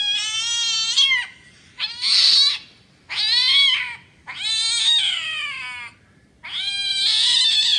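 Five long, drawn-out cat meows in a row, each lasting about a second and arching up then down in pitch.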